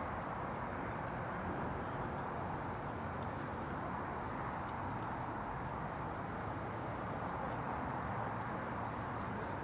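Steady outdoor background noise, an even hiss with no clear pitch, with a few faint light ticks here and there.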